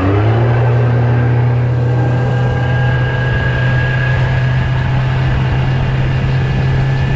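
Yamaha 115 outboard motor running hard, its pitch settling just after the start and then holding steady as the boat runs up on plane.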